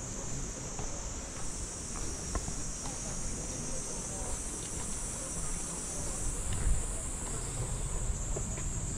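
A steady, high-pitched insect chorus that shifts slightly higher about a second in and drops back a little after six seconds, over faint low knocks of walking.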